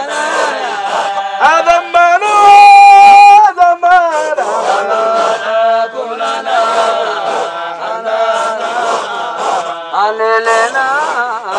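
A group of men chanting a Qadiriya Sufi dhikr together in long held phrases, with a loud sustained note about two and a half seconds in.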